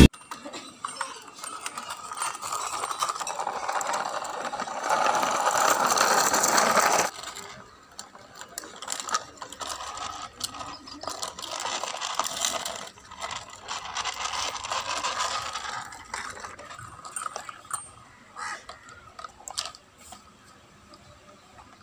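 Plastic toy backhoe loader being pushed and handled, its wheels and gears making a ratcheting rattle that swells about five seconds in and cuts off suddenly about two seconds later. Then come quieter stretches and scattered clicks and knocks of plastic toys being handled.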